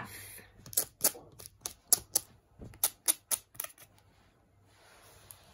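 Fingers tapping and scratching on the rough textured paw pads of a cardboard touch-and-feel board book: a quick, irregular run of about a dozen sharp clicks, then a softer scraping near the end.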